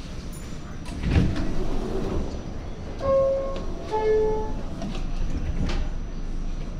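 New York City subway car's two-tone door chime, a higher note then a lower one, about three seconds in, signalling that the doors are about to close. Underneath is the steady rumble of the train, with a knock about a second in.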